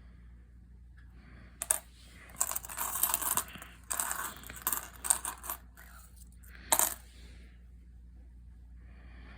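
Loose 2024 US pennies, copper-plated zinc cents, clinking and rattling against each other as they are handled and sorted. There is a sharp clink about two seconds in, two spells of rattling through the middle, and one more sharp clink near the end.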